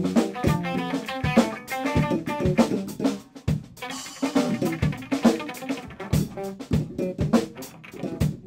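Band music: a drum kit playing dense, frequent hits under guitar.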